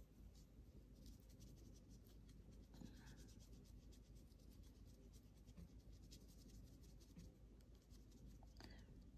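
Faint strokes of a watercolour brush on paper: soft, scratchy swishes and light ticks that come and go.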